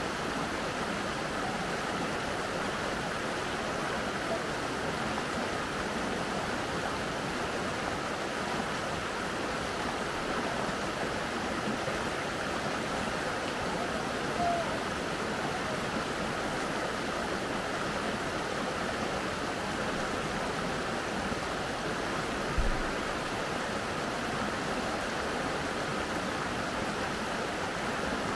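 Steady rush of a mountain river's flowing water. A brief low thump sounds about two-thirds of the way through.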